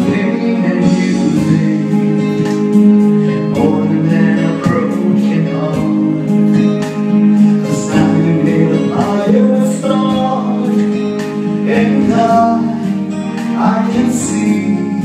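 A man singing a pop ballad into a handheld microphone over recorded musical accompaniment.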